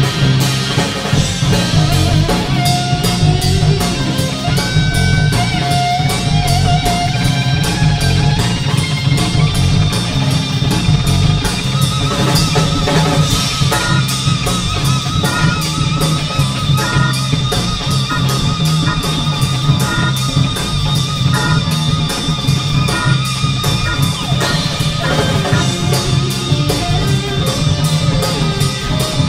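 Live rock band: an electric guitar plays a solo of held, wavering notes over electric bass and a drum kit.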